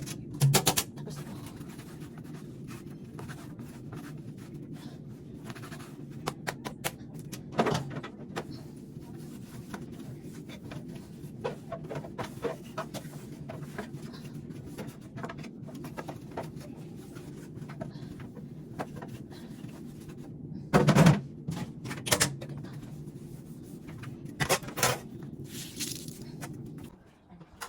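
A steady low hum that cuts off suddenly near the end, under scattered knocks and clatters of air-conditioner parts being handled, the loudest knocks coming about two-thirds of the way through.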